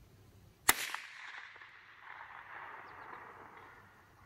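A single shot from a Tikka T1x .22LR rimfire rifle about a second in, a sharp crack followed by a long echo that fades out over about three seconds.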